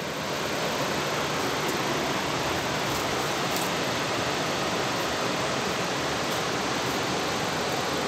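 Steady rush of the Paraguaçu River's whitewater pouring over rock ledges and boulders.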